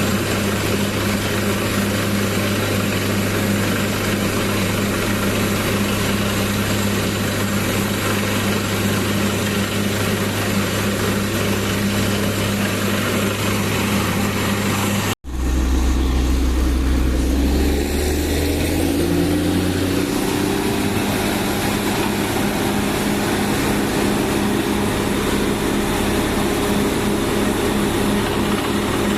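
Engine of a borewell drilling rig running steadily. About halfway through, the sound breaks off for an instant and comes back as a different engine sound with a deeper note, which settles into a steady hum after a few seconds.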